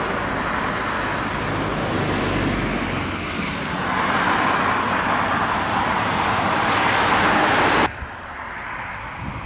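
Road traffic noise: tyres and engines of cars passing on the road, with one car passing close by and louder for the second half. It cuts off abruptly near the end, leaving a much quieter outdoor hush.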